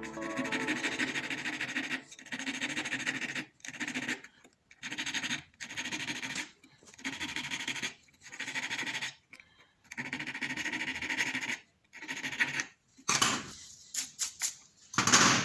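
Hand abrasive work on a silver ring: repeated scraping strokes, each about a second long with short gaps between them, turning quicker and louder near the end.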